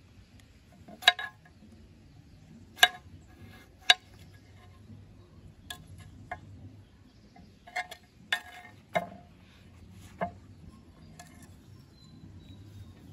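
Small knife cutting and snapping florets off a banana flower. About ten sharp clicks come at irregular intervals.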